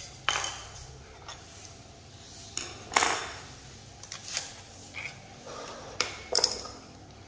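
A handful of sharp metallic clinks with brief ringing as a bicycle crank and pedal are worked on by hand with metal tools. The loudest comes about three seconds in, and two more fall close together about six seconds in.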